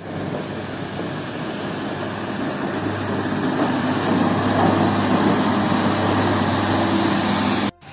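Snow plough truck driving past close by, its front blade pushing slush along the wet road with a steady rushing hiss; the engine's low hum comes in and grows louder about three seconds in as the truck nears.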